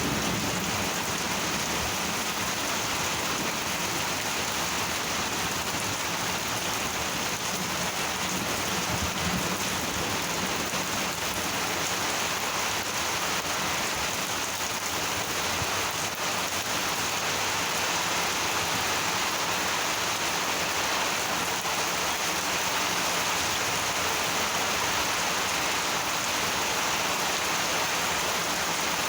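Heavy, steady monsoon rain falling and hitting surfaces. A low rumble of thunder dies away near the start.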